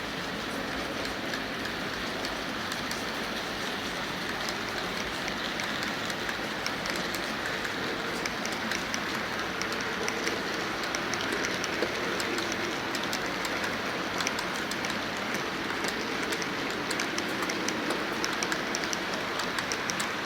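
Freight train running on the rails: a steady rumble with quick clicks of wheels over rail joints that grow denser and a little louder from about a third of the way in.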